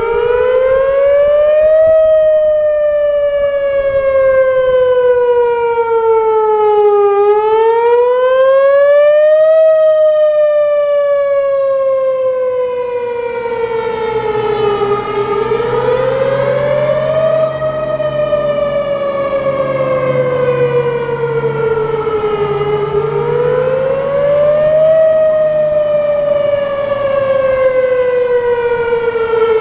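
Whelen WPS 3016 electronic outdoor warning siren sounding its wail tone during a siren test: a loud tone that rises over about two seconds and slowly falls over about five, repeating about every seven and a half seconds.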